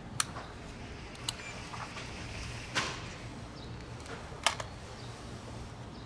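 Four sharp clicks and light knocks, spread over several seconds, from wires and a clamp meter being handled at an inverter's terminal block, over a faint steady hum.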